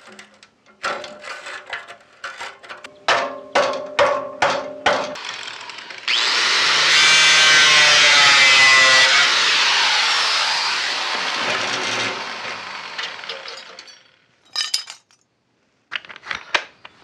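Sharp metallic clinks and scrapes as rusty sheet-steel grille skins are pried and pulled apart by hand. About six seconds in, an angle grinder starts cutting the steel, runs steadily for several seconds, then tails off, followed by a few clicks.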